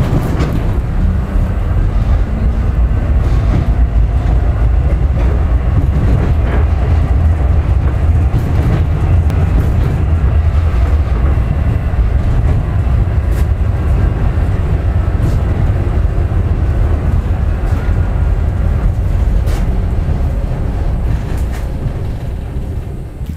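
Tram running along an interurban line, heard from the front of the car: a steady low rumble with occasional sharp knocks from the track, which is in poor condition.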